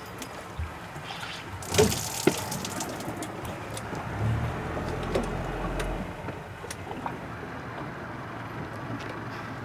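Boat engine running at low speed with water sloshing against the hull, a low hum swelling between about four and six seconds in. A short burst of noise with two sharp knocks comes about two seconds in.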